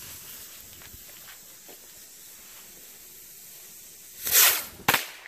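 Lit bottle rocket fuse hissing faintly, then about four seconds in the rocket goes off with a short loud whoosh followed by a sharp pop.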